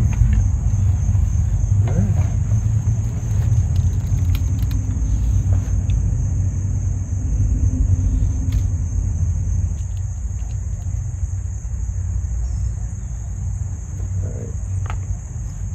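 A steady, high-pitched chorus of insects over a low, fluctuating rumble.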